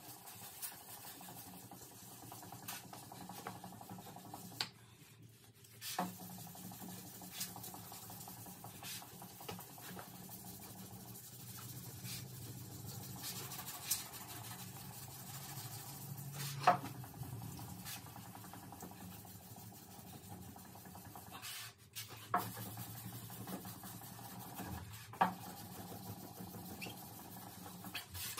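Scattered light knocks and clicks of tools and parts being handled during car body repair, over a steady low hum; one sharper knock about two-thirds of the way through.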